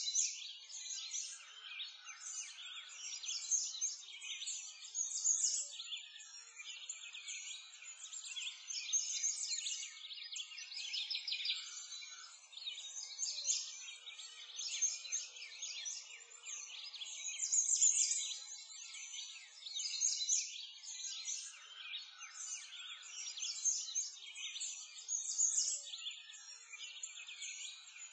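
Continuous chorus of many small songbirds chirping and singing, all high-pitched and overlapping, with no low sound beneath.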